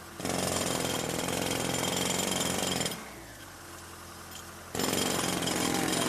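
A power tool running in two bursts of a few seconds each, with a short pause between them.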